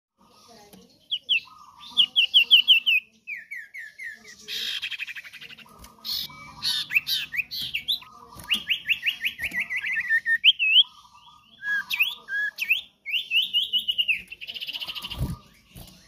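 Common iora (cipoh) singing: quick runs of descending whistled notes, single rising and falling whistles, and a few short bursts of harsh chattering. A low thump comes near the end.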